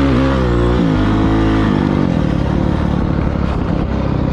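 Kawasaki KLX450R dirt bike's single-cylinder four-stroke engine running while riding, its pitch rising and dipping with the throttle. About a second and a half in it drops to a lower, rougher running.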